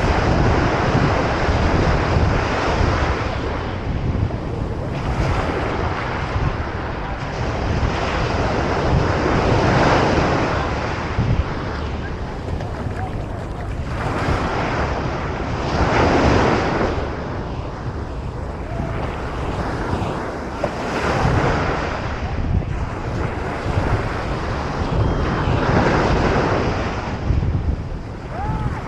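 Ocean surf breaking on a beach, the wash of the waves swelling and fading every five or six seconds, under steady wind rumble on the microphone.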